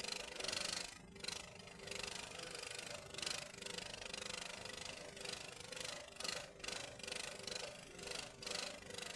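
Electric arc welding on rebar: a continuous crackling, sputtering hiss that swells and dips every second or so, over a steady low hum.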